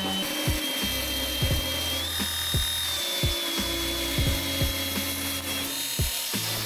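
Background hip-hop beat with deep bass and kick drums, over the steady high whine of an angle grinder grinding back weld spots on a steel cart frame.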